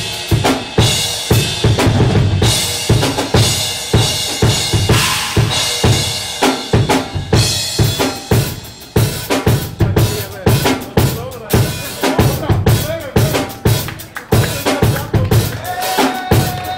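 PDP drum kit played in a one-handed drum solo: a dense stream of fast drum strokes with cymbal crashes.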